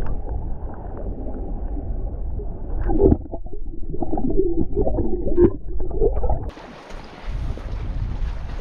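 Muffled underwater water noise, low rushing with gurgles and a cluster of knocks and bubbly clunks about three to six seconds in. About six and a half seconds in it changes to open-air wind and lapping water.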